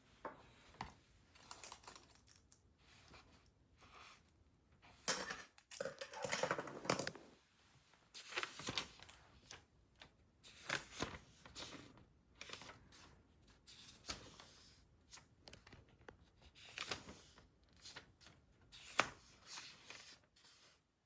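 Close-up handling sounds: irregular clicks and taps mixed with rustling swishes, the longest lasting about a second.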